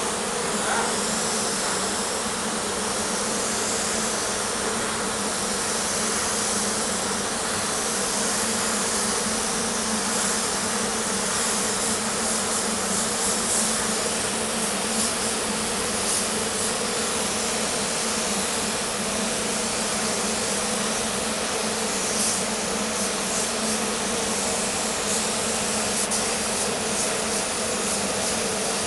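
Gravity-feed paint spray gun hissing steadily as compressed air atomises paint, over a constant buzzing hum.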